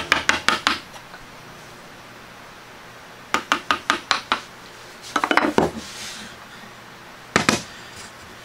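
Chisel being tapped with a mallet, chopping and splitting waste from a lap-joint cutout in a board: runs of quick sharp taps, about six in a second, a short crackle of wood splitting off about five seconds in, and one harder single blow near the end.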